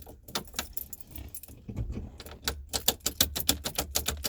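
Keys on a ring jangling and clicking as a key is jiggled and twisted in a jammed, partly drilled-out ignition lock cylinder, with rapid irregular metallic clicks; the cylinder still does not turn.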